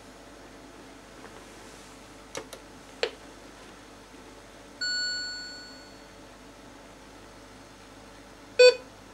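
Philips M3 (M3046A) patient monitor starting up. A few sharp clicks come two to three seconds in, then a ringing start-up tone that fades over about a second, and a short, loud beep near the end as the monitor finishes booting.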